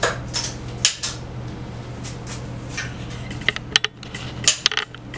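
AR-15 being worked by hand: sharp metallic clicks and clacks of the charging handle and bolt carrier group as the action is cycled and the bolt is let forward, stopping short on the round in a failure to chamber. The sharpest clack comes just under a second in, and two quick runs of clicks follow in the second half.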